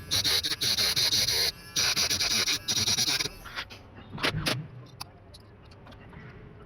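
Small electric drill with a cutting bit grinding through the metal shield on a phone's circuit board: a high, gritty whine that pauses briefly about one and a half seconds in and stops a little after three seconds, followed by a few sharp clicks.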